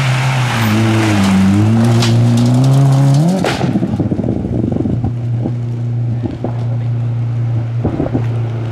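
Rally car engine on a gravel stage. The revs dip and then climb for the first three seconds. Loose gravel clatters as the car passes, and then the engine holds a steady note as it pulls away up the road.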